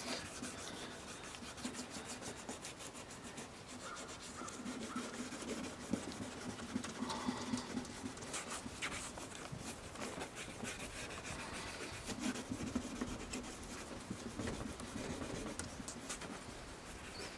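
Hand-held abrasive pad (the kit's number 4 pad) rubbed over a plastic headlight lens, a continuous scratchy rubbing: the last pad stage of a headlight restoration, taking the haze off the lens.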